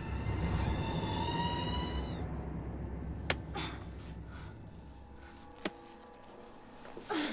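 Film sound effects: a low underwater rumble with a faint eerie tone slowly rising over the first two seconds. Then a few single sharp knocks and scrapes, most likely hands gripping the wet stone wall of a well.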